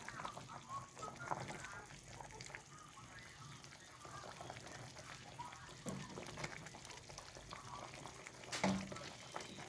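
A chicken squawking and clucking in short, irregular calls, with one louder call near the end.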